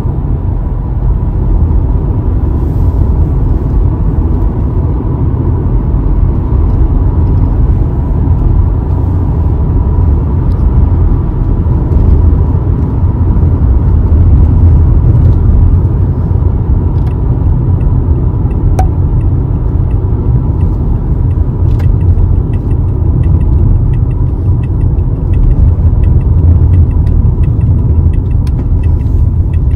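Toyota car driving at speed, heard from inside the cabin: a steady low rumble of engine and road noise.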